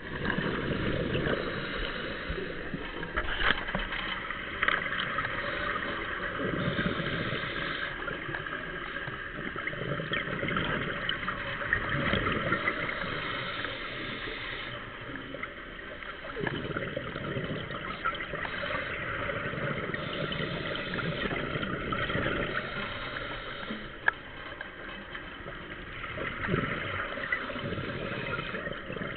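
Scuba regulator breathing heard underwater: hissing inhalations and bubbling exhaust bursts every few seconds, with one sharp click late on.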